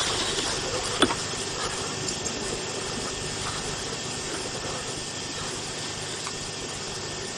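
Steady outdoor noise hiss on a camcorder's microphone, with one sharp click about a second in and a few faint ticks afterwards.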